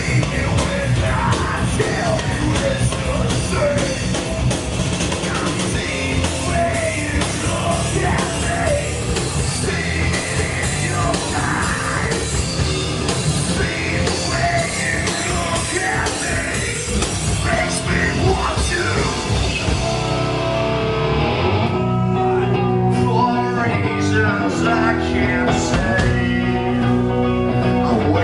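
Metal band playing live, with sung vocals over drums and guitars. About three-quarters of the way through, the drums and cymbals drop out and the music thins to strummed guitar chords.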